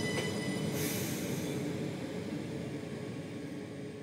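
SNCB AM08 (Siemens Desiro ML) electric multiple unit running past and away: wheel-on-rail rumble with a high steady whine that fades out in the first two seconds and a short hiss about a second in, the whole sound dying away.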